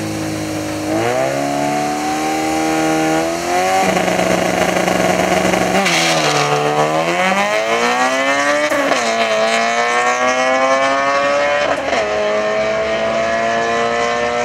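A Honda CRX and a Chrysler 300 SRT8 launching side by side in a drag race: the engines rise in pitch from idle about a second in, then climb and drop back at each gear change, several times over.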